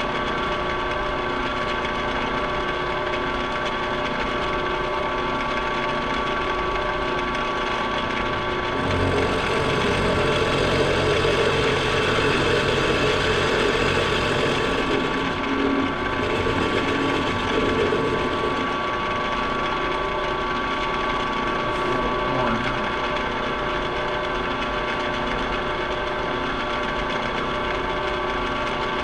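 Milling machine running with a steady gear whine; from about nine seconds in to about nineteen seconds a louder, rougher noise rises as the cutter takes a cut in the metal of the transmission tail housing.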